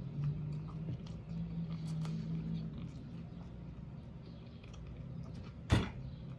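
Close-up chewing of a fried whiting sandwich on crusty Italian bread, soft and wet, with one sharp loud crunch or click near the end.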